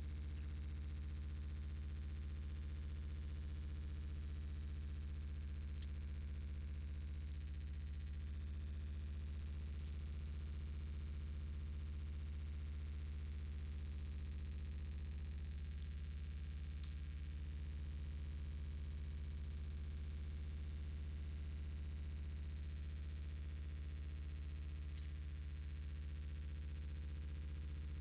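Steady low electrical hum with a buzz of overtones, unchanging throughout, with four faint sharp clicks scattered through it.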